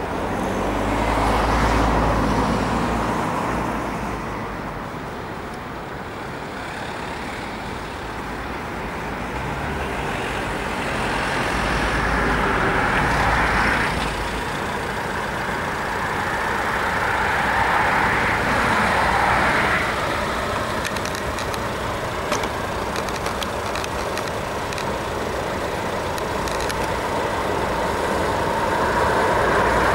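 Road traffic: cars passing one after another, swelling and fading in turn, while a steam-hauled train draws closer and grows louder near the end.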